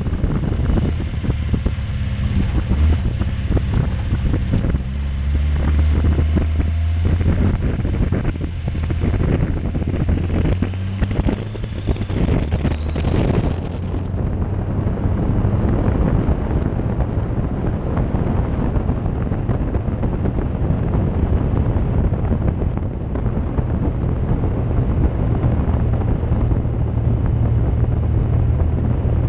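VAZ 2107 Lada's four-cylinder engine running under way with heavy wind noise on the microphone. The engine note shifts in the first half and runs steadier after about halfway.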